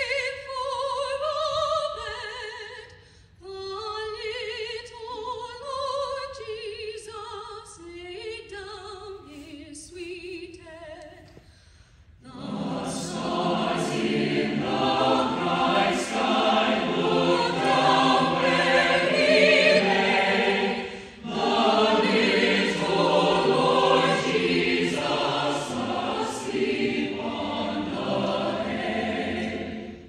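Mixed choir with brass band performing a festive Christmas piece. It opens with a lighter sung passage of a few melodic lines. About twelve seconds in the full ensemble comes in, much louder and fuller.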